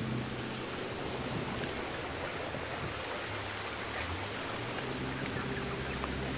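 Small aluminium boat pushing through floating water hyacinth: a steady swishing rush of plants against the hull, over the low hum of its motor.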